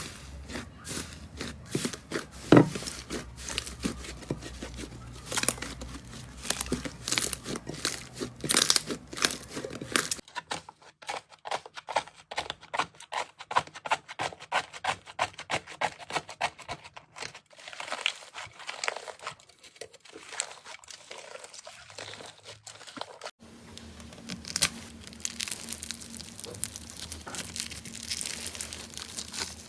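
Slime being squeezed and poked: dense runs of small sharp clicks, pops and crackles, in three stretches with the background changing abruptly twice.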